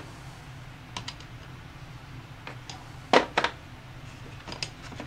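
Metal driver discs from a bearing install kit clicking against one another and the plastic case as they are picked out and handled: a light click about a second in, a louder double click around three seconds, and a few faint clicks near the end.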